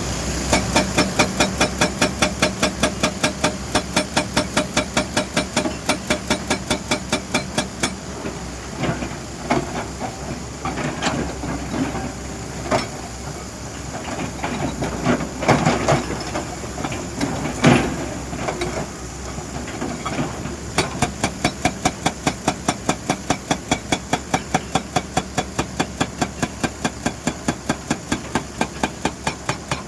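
Excavator-mounted hydraulic breaker hammer pounding in rapid, even blows, several a second, over the machine's running engine. The steady hammering breaks off about a quarter of the way in into scattered knocks and clatter, then resumes about two-thirds of the way through.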